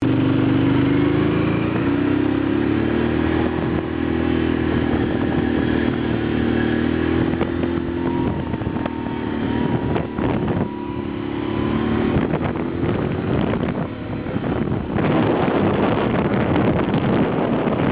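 Can-Am motorbike engine running under way, rising in pitch in the first second or two and then holding steady. Its pitch drops at about 8 seconds and again around 13 seconds, and from about 15 seconds a rougher rushing noise takes over.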